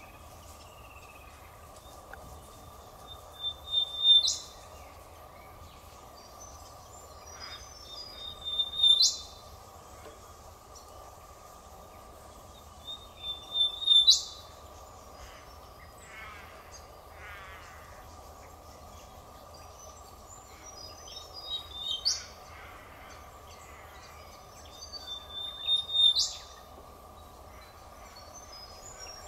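A bird calling again and again, about every four to five seconds, with a longer pause in the middle. Each call is a held high whistle that ends in a sharp upward whip-crack, over a steady background drone.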